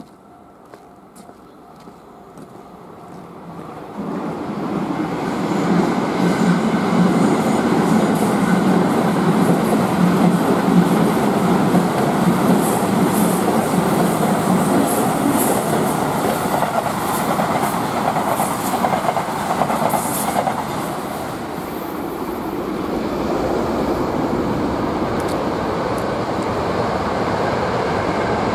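Electric train passing close by: it builds up over the first few seconds, comes on loudly about four seconds in, with wheels clattering over the rails in the middle, then eases a little but keeps running past to the end.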